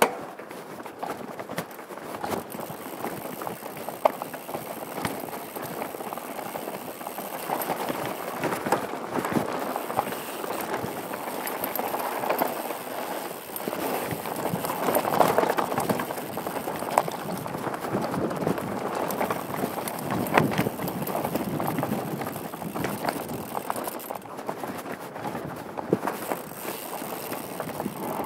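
Downhill mountain bike descending fast over rocky dirt singletrack, heard from a helmet-mounted GoPro: a continuous crunch and rattle of tyres, chain and frame over gravel and stones, with sharp knocks from bigger rock hits near the start, about four seconds in and about twenty seconds in.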